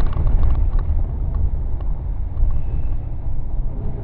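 Steady low rumble of a car driving, heard from inside the cabin: engine and tyre noise at an even level.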